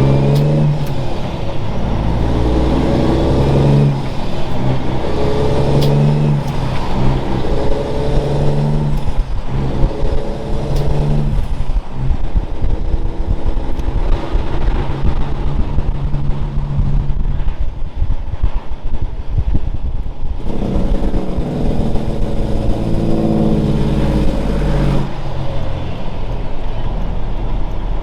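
Heavy diesel semi truck engine running loud under load, its pitch climbing and dropping several times.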